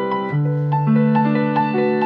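Solo piano music: repeated higher notes over sustained bass notes, the bass changing about a third of a second in.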